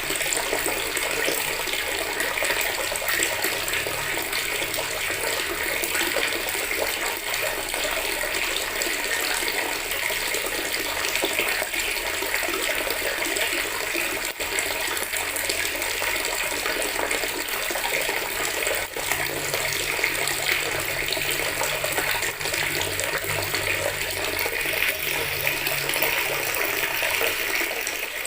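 Water running steadily from a tap into a bucket, a continuous splashing stream.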